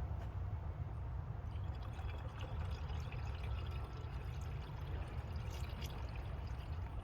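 Liquid poured into a car's cooling system filler for a leak test, a splashy gurgle that picks up about a second and a half in, over a steady low rumble.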